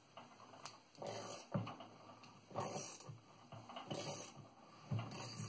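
Open-end wrench turning an internal pipe wrench to unscrew a 3/4-inch threaded pipe nipple from a fitting: faint metallic scraping and clicking strokes, about one every second or so, as the wrench is swung and reset.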